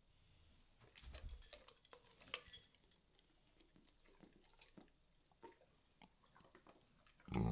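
Springer spaniel taking a small treat from a hand and chewing it: faint crunching clicks, thickest in the first few seconds, then scattered. A short low thump comes near the end.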